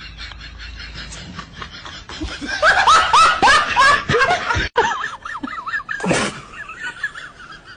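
A toddler laughing: a quick run of high, falling giggles lasting about two seconds, a few seconds in.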